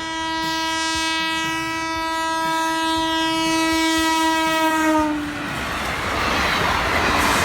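Train horn sounding one long, steady blast of about five seconds, its pitch dropping slightly as it ends. The noise of the train running on the rails follows.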